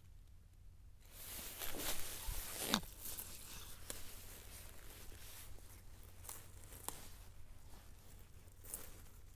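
Rustling and tearing of leafy plants handled by hand while wild garlic flower stalks are picked. It is loudest in the first few seconds, with a few sharp clicks later.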